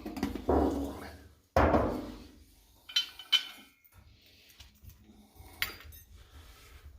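Handling noise from the small metal fuel tank and parts of a Coleman 530 pocket stove: a handful of separate knocks and clatters as they are picked up and set down, with sharper metallic clinks around three seconds in.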